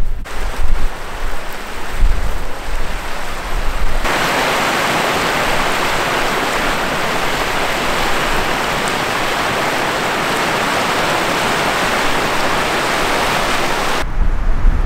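Steady rushing of a creek's small rapids pouring into a pool, which starts and stops abruptly about four seconds in and near the end. Before and after it, wind gusts buffet the microphone with a low rumble.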